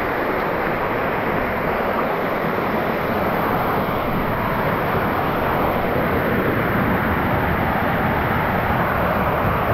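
Mountain stream water rushing: a loud, steady, even rush with no breaks.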